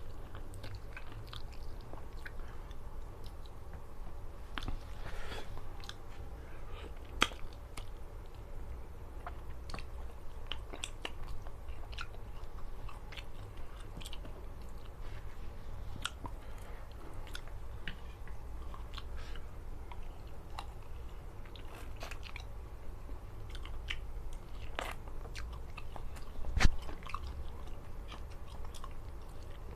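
A person eating close to the microphone: chewing and biting food, with many small clicks, and a louder knock about seven seconds in and another near the end.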